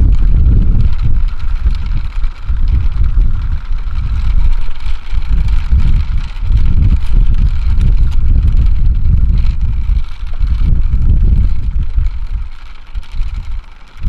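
Wind buffeting the microphone: a loud, uneven low rumble that sags near the end.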